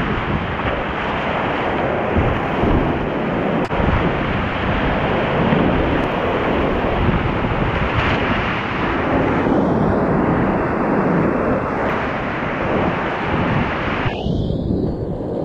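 Loud, steady rush of whitewater rapids around a creek kayak running them, with water crashing over the boat's bow about halfway through. The sound turns duller near the end.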